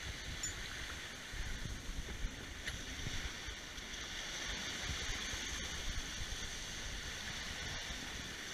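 Water rushing and splashing steadily along the hull of a heeled sailboat close reaching at about 5 knots in a strong breeze, with gusty wind rumble on the microphone.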